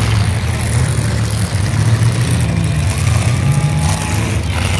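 Engines of several demolition derby cars running together during a race, a loud, steady low engine noise.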